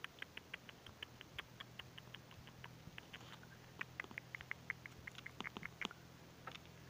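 Ginger long-haired cat chattering: a rapid, uneven run of short, high clicking chirps, about four or five a second.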